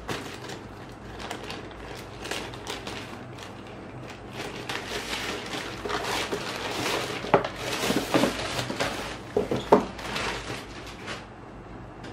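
Scissors cutting open a plastic poly mailer bag, with the plastic crinkling and rustling and several sharp snips. The crinkling grows louder about halfway through and stops about a second before the end.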